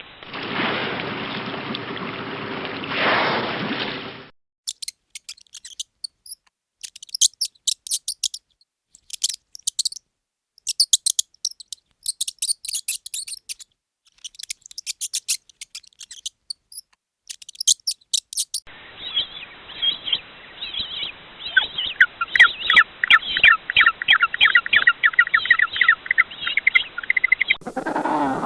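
Recorded bird sounds: very high, thin chirps in irregular clusters, then a fast repeating birdsong trill. A short, noisy animal sound of another kind comes first, for about four seconds.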